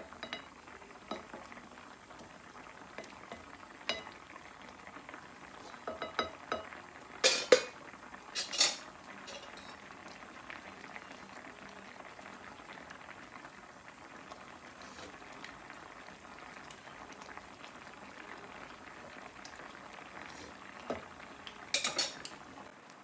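A pot of fish in coconut milk simmering with a steady bubbling hiss. Metal utensils clink and clatter against the pot in a cluster between about six and nine seconds in, and again near the end.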